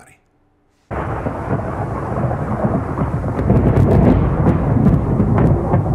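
Thunderstorm: rain with deep rumbling thunder, cutting in suddenly about a second in after a moment of silence, with a few sharp crackles midway.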